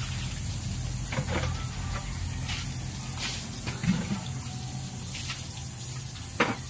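Water running and splashing steadily, with a few short knocks and taps over it, the sharpest one near the end.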